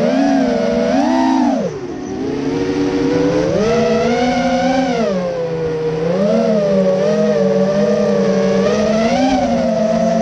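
Motorcycle engine heard from onboard on a race track, its pitch climbing under throttle and falling off several times through the corners, with a sharp drop about two seconds in as the throttle closes. Wind rushes over the microphone.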